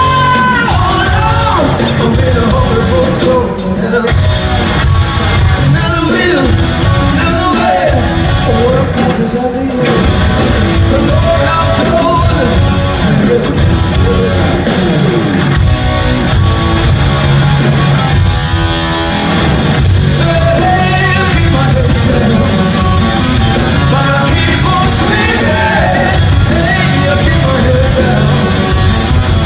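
Live rock band playing loud and without a break, with the lead singer singing and yelling over the band, heard in the echo of a large arena.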